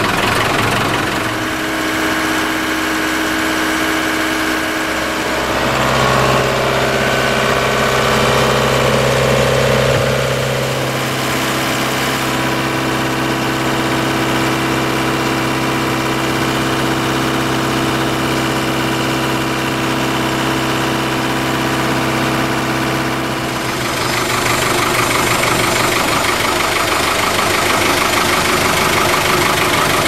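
1987 Case 580 Super E backhoe's engine running steadily at idle while the loader's hydraulic control levers are worked to circulate freshly changed hydraulic oil. The engine note shifts about six seconds in and changes again near the end.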